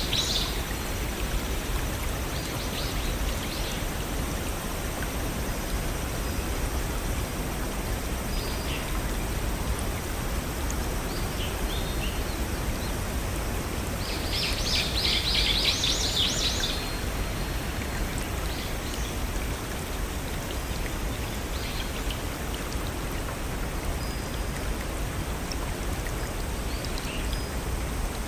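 Steady rushing of a small forest waterfall and stream, with birds chirping over it: a dense burst of high chirps about halfway through and a few faint calls elsewhere.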